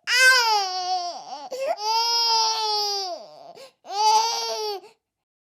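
Baby crying: three wailing cries, the first sliding down in pitch, the second long and held, the third short, then the crying stops about five seconds in.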